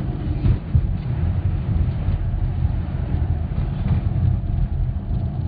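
Car driving along a rough country road, heard from inside the cabin: a steady low rumble of engine and tyres.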